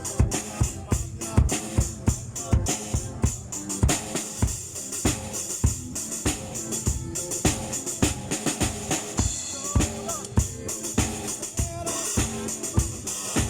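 Live band playing during a sound check, drum kit to the fore: kick drum and snare in a steady beat under a constant wash of cymbals, with sustained pitched instruments underneath.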